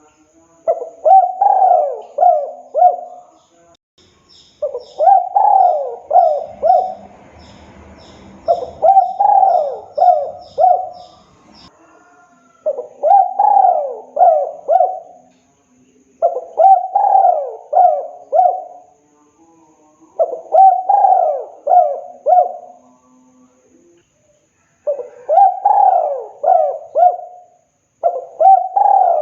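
Spotted dove (tekukur) cooing its song over and over: eight phrases of four or five coos each, one phrase every three to four seconds. Faint high chirps from another bird run under the first part.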